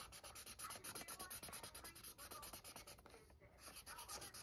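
Faint scratching of a felt-tip marker colouring in on paper: quick back-and-forth strokes in a fast run, with a brief pause about three seconds in.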